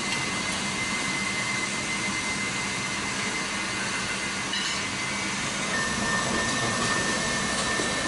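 Steady rushing air noise with a faint, thin, steady whine that drops slightly in pitch about six seconds in.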